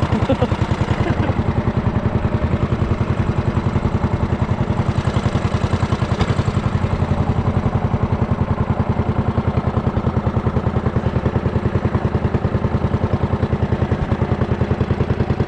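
Small engine running steadily at a low speed, with a fast, even chugging beat. It has just been started.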